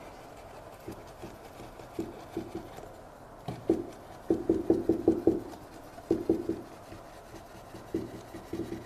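Stiff paintbrush tapping oil paint onto a stretched canvas: firm, dull knocks in irregular bursts, the longest a quick run of about seven taps near the middle.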